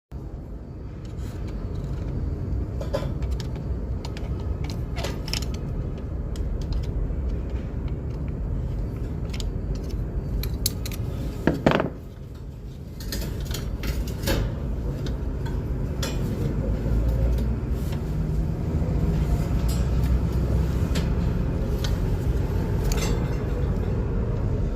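Metal clinks and tool clicks from work on a roller shutter door motor, over a steady low hum, with a louder knock about halfway through.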